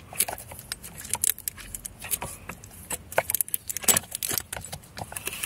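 Irregular small clicks and rattles as a gloved hand and a pick work the water pump drive belt of a VW/Audi EA888 Gen 3 engine off its pulley, pushing it left and right.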